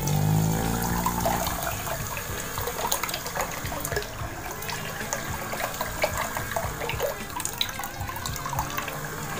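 Water running and splashing steadily, with many small splashes throughout. A low hum sounds in the first second or so.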